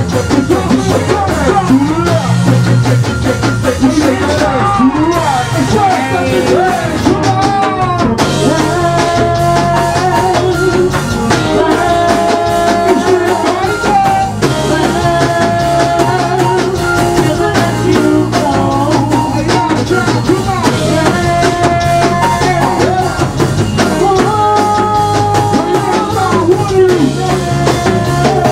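Go-go band playing live in the bounce-beat style, with vocalists singing into microphones over the beat and keyboards. The sung lines slide in pitch at first, and held notes take over about eight seconds in.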